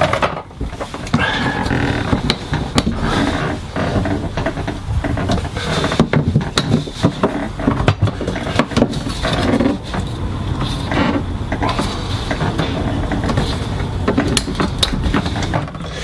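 Continuous clicking, rattling and rustling of hard plastic being handled, as the flush control panel of a Thetford C250 cassette toilet is worked out of its housing and a replacement part's packaging is handled.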